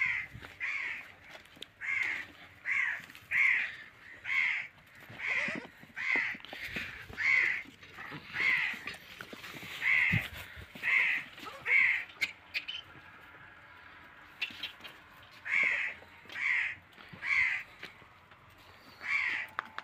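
A crow cawing over and over, short harsh calls about every two-thirds of a second, with a pause of a few seconds past the middle.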